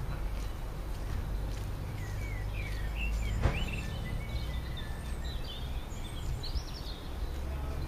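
Birds chirping, a string of short calls over a steady low rumble of outdoor background noise, with one sharp click about halfway through.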